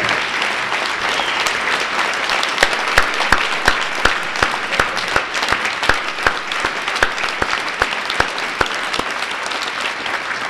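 Audience applauding: a steady, dense clatter of many hands clapping, with individual sharp claps standing out.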